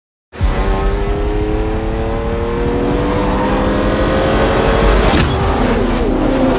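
A 1950s Ferrari sports racing car's engine cuts in suddenly and pulls hard under acceleration, its pitch climbing steadily. About five seconds in, the car sweeps past with a brief whoosh and the engine note bends.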